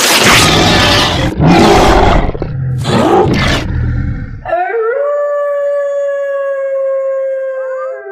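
Werewolf transformation sound effect: rough, loud roaring growls in several bursts, then about four seconds in a single long wolf-like howl that holds a steady pitch and bends near the end.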